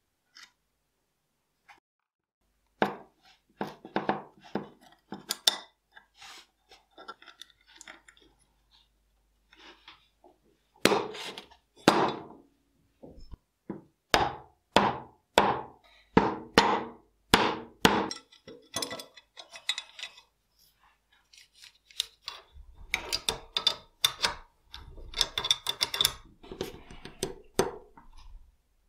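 Small metal tools clicking and scraping on the steel parts of a revolver being dismantled, with a run of sharp taps about one a second from a pin punch tapped against the frame. Near the end comes a dense patch of clicking and scraping.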